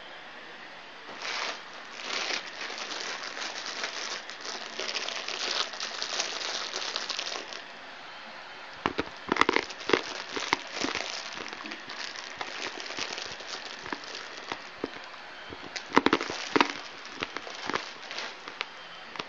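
A bag crinkling as it is handled: a dense stretch of rustling in the first several seconds, then bursts of sharper crackles around the middle and again near the end.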